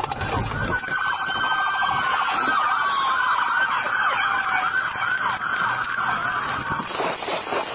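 Police car sirens sounding, more than one at once: fast rising and falling yelp sweeps overlapping a longer wail and a steady high tone.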